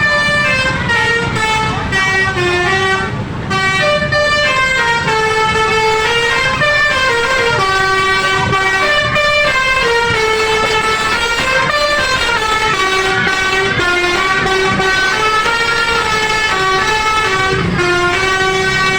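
Basuri telolet musical air horns on tour buses playing a multi-note melody, the notes stepping up and down every half second or so without a break. A low engine rumble runs underneath.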